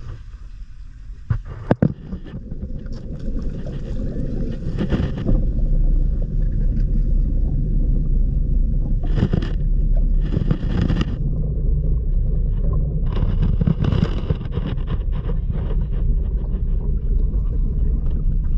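Steady low rumble of a boat's motor running, building over the first few seconds and then holding, with water sloshing by the hull. Brief voices come in about halfway through.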